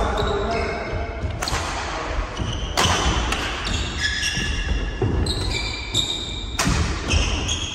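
Badminton rackets striking a shuttlecock in a doubles rally: four sharp hits, each about a second and a half to two seconds after the last, with court shoes squeaking on a wooden floor between them, echoing in a large hall.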